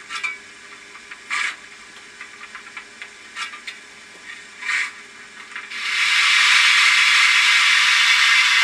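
Sound decoder in a model steam locomotive playing steam effects through its small speaker: a few short hisses of steam a second or two apart, then, about six seconds in, a loud continuous hiss of steam that keeps on.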